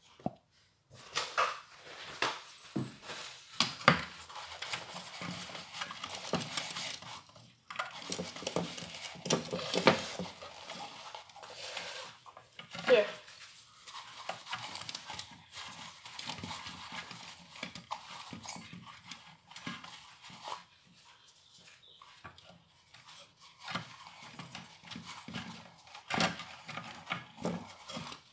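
Toilet paper rustling and scraping over the metal casing of a vacuum cleaner motor as it is wiped clean of dust. There are irregular rubbing strokes and an occasional sharp click of the motor or its wires being handled.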